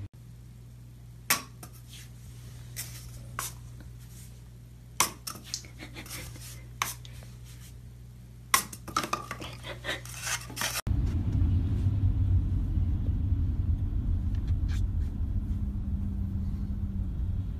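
Scattered light taps and knocks echoing in a bathtub, a dozen or so, some in quick clusters. About eleven seconds in, a cut brings a steady low road rumble heard inside a moving car.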